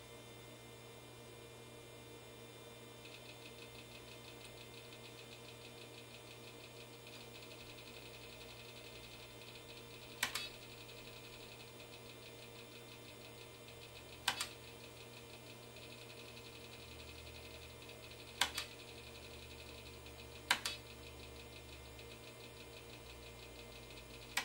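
IBM PC keyboard's space bar pressed five times at irregular intervals, each press a sharp double click, over the steady hum of the running IBM PC 5150.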